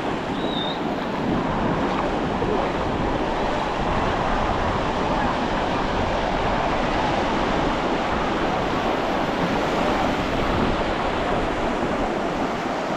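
Ocean surf breaking and washing on the beach, a steady rush with wind buffeting the microphone. Faint voices of people can be heard in the background.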